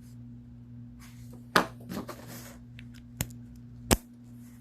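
Airbrush quick-release air coupling being handled, with three sharp clicks over a steady low hum.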